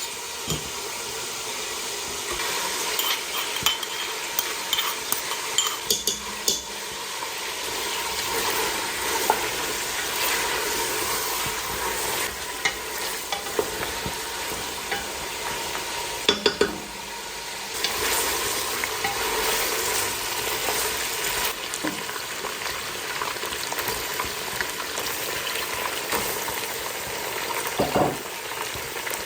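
Food sizzling in hot oil in a pan while being stirred, with a metal utensil scraping and clinking against the pan now and then.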